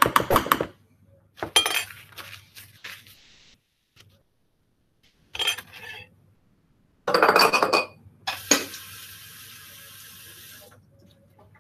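Metal utensils and dishes clinking and clattering in several short bursts, then a water tap running steadily for about two seconds before it is shut off.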